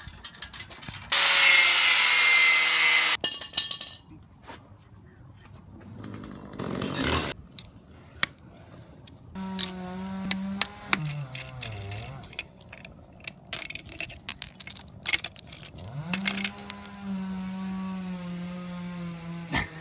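Hand tools at work on a child's bicycle: a socket ratchet on the rear axle and hammer blows on the rear sprocket, heard as scattered clicks and sharp metal knocks. A loud rushing noise comes about a second in and lasts about two seconds. From about halfway a motor runs with a steady hum; its pitch sags and then recovers.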